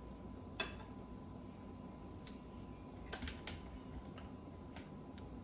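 Eating sounds: a few faint, scattered clicks and taps, as of a fork on a plate, with a small cluster of them a little past the middle.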